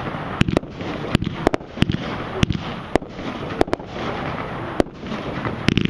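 Brothers Pyrotechnics 'Make My Day' 107-shot firework cake firing: sharp reports about twice a second at uneven spacing, some in quick pairs, over a steady rush of noise between them.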